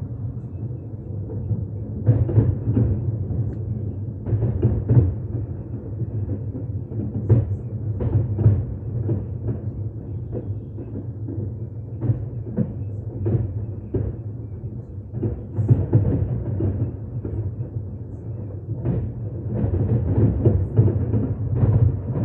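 Fireworks shells bursting in a dense, irregular string of booms, over a continuous low rumble.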